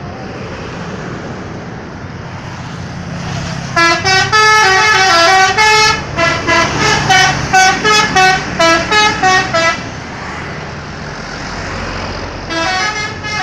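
A bus's multi-tone 'telolet' musical horn playing a quick tune of stepped notes for about six seconds, starting about four seconds in, then starting again near the end. A vehicle engine runs steadily underneath.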